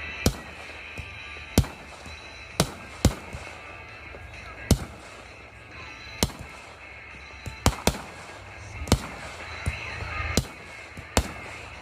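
Consumer fireworks going off, with about eleven sharp bangs at uneven intervals, roughly one a second, some in quick pairs.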